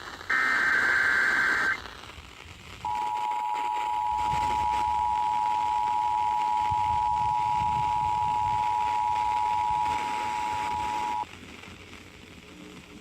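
Emergency Alert System broadcast: the end of a screeching SAME digital header burst, then after a short pause the EAS two-tone attention signal (853 and 960 Hz together) sounding steadily for about eight seconds before cutting off sharply, leaving faint radio hiss. This is the start of a test Tornado Warning.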